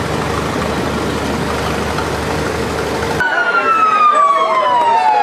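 Vintage tractor engines running steadily, then, after a cut about three seconds in, a vehicle siren wailing loudly with its pitch sliding slowly down.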